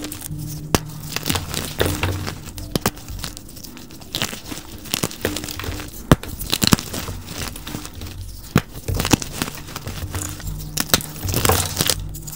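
Fingers crushing and crumbling blocks of soft gym chalk into powder: a dense, irregular run of crisp crunches with several sharp cracks.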